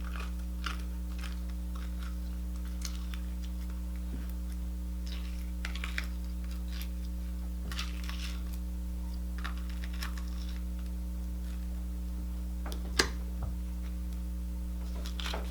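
Clear glitter slime being pulled from its container and handled, giving scattered small sticky clicks and pops, one sharper pop about 13 seconds in, over a steady electrical hum.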